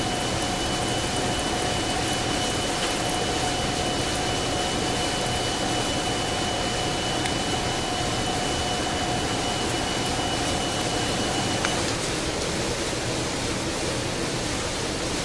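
Hardinge HLV-H toolroom lathe running: a steady, even mechanical noise with a steady whine that stops about three quarters of the way through while the noise carries on.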